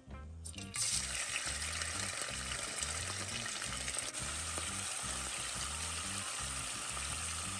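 Flaked saltfish (salt cod) dropped into hot oil in a pot, frying with a steady sizzle that starts about a second in.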